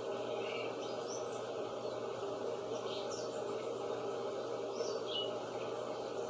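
Birds chirping over a steady background noise: a few short, high chirps scattered through, near the start, about three seconds in and twice around five seconds.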